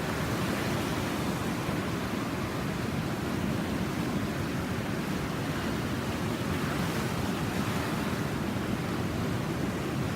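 Ocean surf breaking in a steady, unbroken wash, the swell left behind by a passing typhoon.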